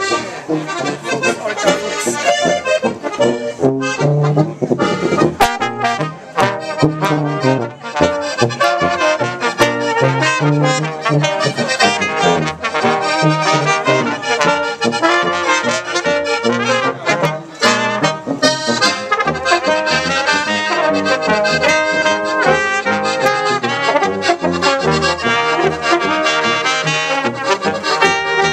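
Small brass-and-accordion band playing a tune together: piano accordion, trumpets, trombone and a helicon-style tuba, with repeating bass notes under a steady beat.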